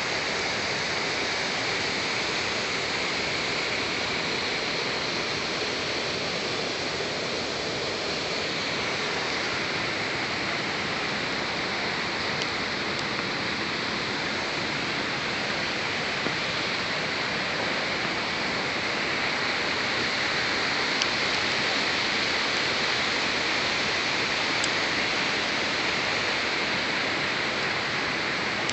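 Steady rush of water from the creek in the canyon below, an even hiss that does not change, with a few faint ticks.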